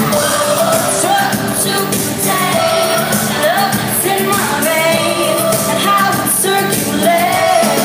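Female pop vocal group singing live over a pop backing track with a steady beat, heard from the audience of a concert hall.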